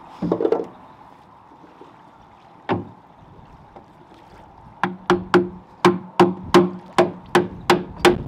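A wooden shear pin being knocked into the kick-up rudder fitting of an aluminium catamaran: a thump and a single knock, then from about five seconds in a steady series of sharp knocks, about three a second, each ringing briefly.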